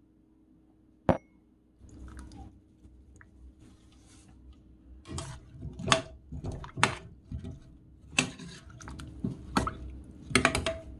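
Metal ladle stirring and spooning sauce over radish chunks in a stainless steel pot: repeated irregular clinks and knocks of the ladle against the pot, with liquid sloshing. A single sharp clink comes about a second in.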